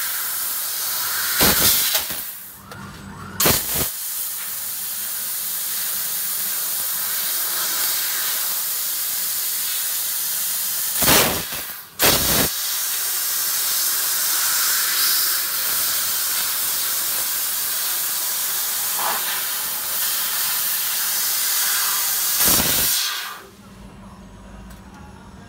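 Fiber laser cutting head cutting 2 mm stainless steel sheet: a steady loud hiss of assist gas blowing through the nozzle, with a few short louder bursts and a brief drop near the start as one cut ends and the next begins. The hiss cuts off about 23 seconds in, leaving only a low machine hum.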